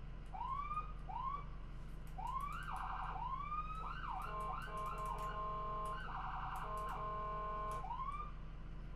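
Electronic siren cycling through its tones: several short rising whoops, then a fast warble, then a long steady tone broken by a second fast warble, ending with one more whoop.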